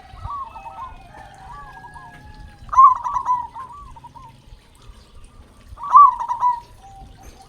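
Zebra doves (perkutut) cooing in their rolling, bubbling phrases. Two loud phrases come about three seconds apart, with quieter overlapping cooing between them.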